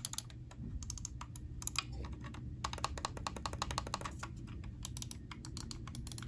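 EVGA X17 wired gaming mouse's buttons clicked over and over in quick flurries: the main, side and wheel buttons pressed in turn to show how they sound.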